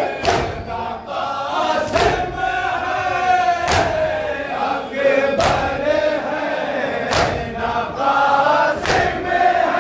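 Crowd of men chanting a Shia nauha lament in unison, with chest-beating (matam): a sharp slap from many hands together about every second and three-quarters.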